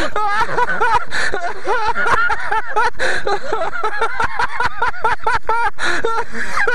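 Men laughing hard: high, wavering laughter in quick pulses, with gasps between.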